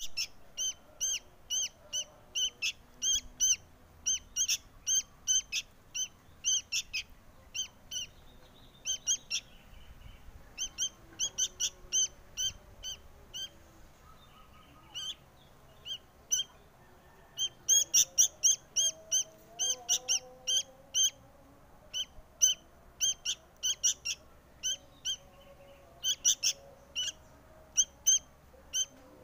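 Sooty-headed bulbul fledgling begging to be fed: short, high chirps repeated about two a second, thinning out for a few seconds about halfway through.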